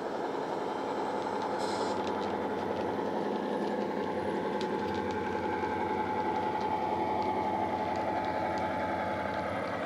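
Sound decoder in a model Class 59 diesel locomotive playing the engine running, through the model's small onboard speaker. A steady high whine sits above the engine note, with a few faint clicks.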